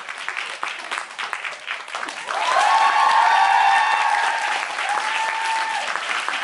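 Theatre audience applauding a curtain call. About two seconds in, a loud, held cheer from the audience rises over the clapping for about two seconds, as the cast bow. A shorter cheer follows near the end.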